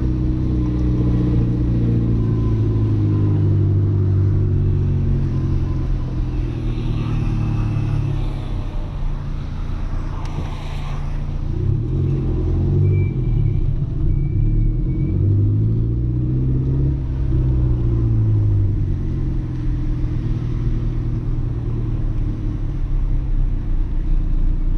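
Audi A3 1.8T 20-valve turbocharged four-cylinder engine running as the car is driven, heard from inside the cabin. The engine note holds steady at first, a brief whoosh comes about ten seconds in, then the pitch rises and falls as the car accelerates and eases off.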